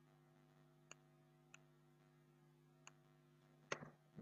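Faint computer mouse clicks over a low steady hum: three light single clicks, then a louder press-and-release near the end.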